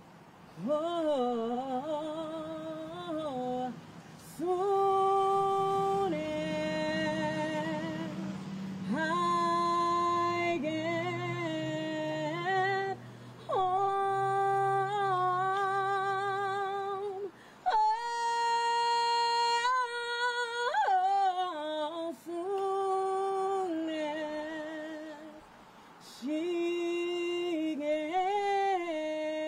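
A woman singing a slow gospel song into a handheld microphone, without accompaniment, holding long notes with a wide vibrato and sliding between them, with short breaks for breath between phrases.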